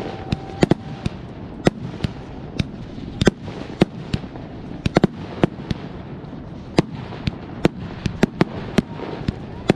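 Fireworks display going off: a rapid, irregular string of sharp bangs and cracks, several a second, over a constant crackle.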